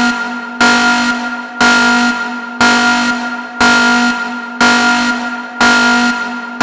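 Emergency alarm horn sounding in loud, even blasts about once a second, each a steady buzzing tone that fades slightly before the next starts, with no rise or fall in pitch.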